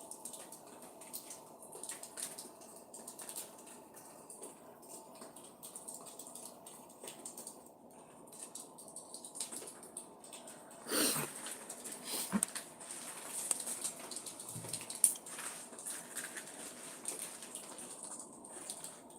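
Backyard ambience: faint high chirping from small birds over scattered clicks and rustles close to the microphone, with a brief louder rushing noise about eleven seconds in.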